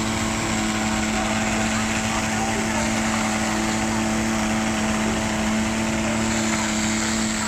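A motor running steadily with a constant hum of several even tones, under a continuous hiss of fire hose water jets spraying onto a burning boat.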